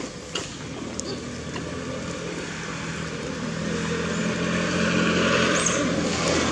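A motor vehicle engine growing steadily louder as it approaches, with a few faint clicks in the first second.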